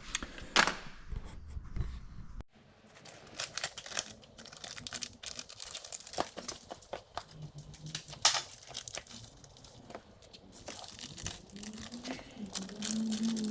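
Crinkling and tearing of packaging with scattered sharp clicks of small parts being handled. Near the end a low pitched sound with rising and falling pitch comes in.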